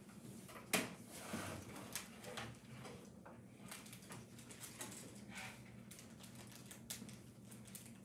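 Faint, light ticks and short scratchy strokes of a fine watercolour brush on paper, with a sharper handling click about a second in, over a faint low hum.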